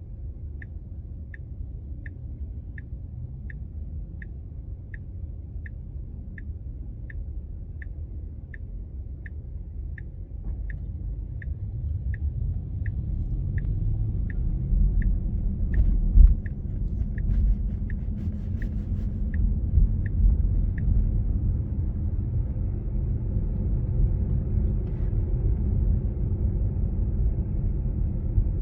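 Tesla Model 3's turn-signal ticking, about three ticks every two seconds, over tyre and road rumble inside the cabin. The rumble grows louder about a third of the way in, with a single thump about halfway. The ticking stops about three quarters of the way through.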